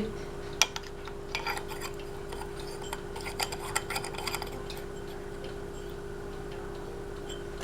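A light bulb being screwed back into a ceiling fan's light fixture, with scraping and small clicks over the first few seconds. A steady hum runs underneath.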